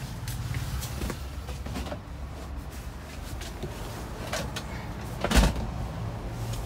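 Knocks, clicks and rubbing from handling inside a van's passenger cabin, with one sharper, louder knock about five and a half seconds in, over a low steady hum.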